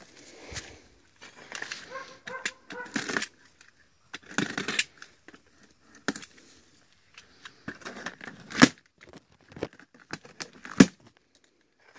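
A box cutter slicing packing tape and cardboard on a shipping box, in a run of irregular scraping and tearing strokes. Two sharp clicks, about two seconds apart, stand out as the loudest sounds in the second half.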